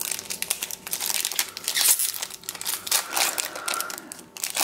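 The foil wrapper of a Yu-Gi-Oh! booster pack crinkling as it is torn open by hand, in quick crackly rustles.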